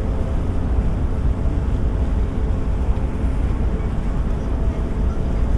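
Steady low rumble of a ship's engine, with a faint steady hum above it.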